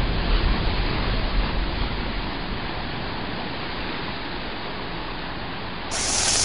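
Steady rushing noise like sea surf. Near the end a louder, brighter hiss starts, a lit fuse sizzling.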